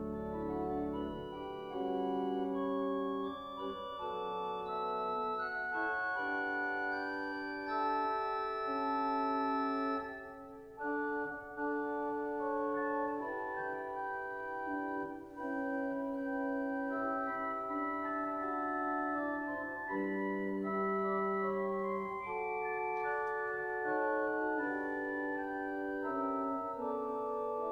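Organ prelude played in slow, sustained chords, each note held steadily and the harmony moving on every second or so.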